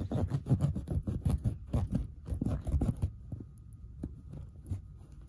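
A knife sawing and pressing at a plastic doll on a soft bed surface: a quick run of dull thumps and scrapes for about three seconds, then a few faint clicks.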